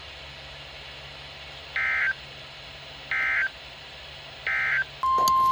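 NOAA Weather Radio SAME alert header: three short bursts of digital data screech about a second and a half apart, followed about five seconds in by the loud steady single-pitch weather alert tone, signalling that a new warning is about to be read. Faint radio hiss lies underneath.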